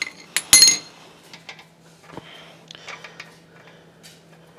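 Metal clinks as the propeller nut is fitted back onto a Mercury 90 HP outboard's prop shaft: one sharp ringing clink about half a second in, then light scattered clicks.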